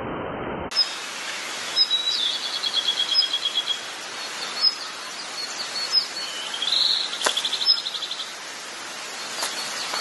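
Birds chirping: scattered short high chirps and two fast trills of rapidly repeated notes, one about two seconds in and another beginning with a rising note about six and a half seconds in. A sharp click sounds a little after seven seconds.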